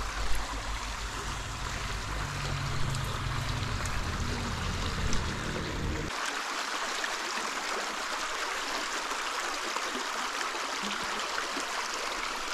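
Running water, a steady rushing hiss, with a low rumble underneath that cuts off abruptly about halfway through.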